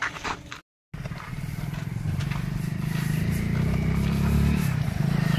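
Motorcycle engine running at low speed, growing steadily louder as it approaches.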